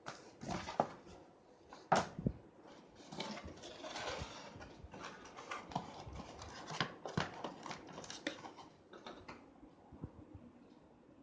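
Handling noise from a laptop unboxing: irregular clicks, taps and rustling as things are picked up and moved, with the sharpest knock about two seconds in.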